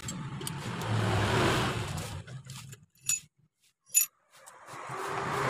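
A vehicle passing, its noise swelling and then fading over the first two seconds. In the quiet that follows come two sharp metallic clinks of small metal parts about a second apart, and near the end another vehicle's noise builds up.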